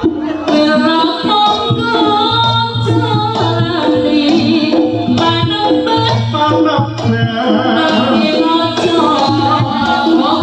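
Javanese jaranan ensemble music playing loudly and continuously: a busy pattern of hand-drum (kendang) strokes under quick pitched metal-percussion notes, with a low gong-like tone sounding every few seconds.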